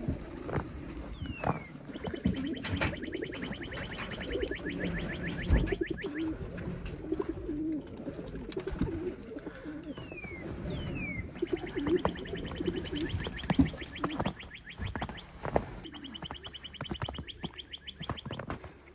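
Loft full of pigeons cooing continuously. A high, rapid trill is heard three times, the first two each preceded by short falling whistles, with scattered sharp knocks throughout.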